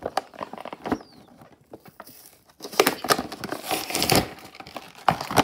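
Plastic blister pack and cardboard backing of a boxed action figure crinkling and crackling as it is handled and opened by hand, busiest about halfway through.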